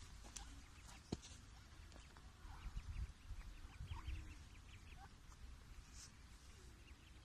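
Faint, short high-pitched peeping calls of mallard ducklings, coming in a quick cluster through the middle, over a low rumble.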